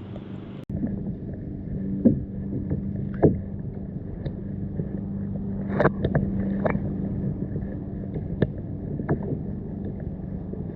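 Kayak on the water, heard muffled: a steady wash of water with a low hum and scattered knocks against the hull, the loudest about two, three, six and seven seconds in.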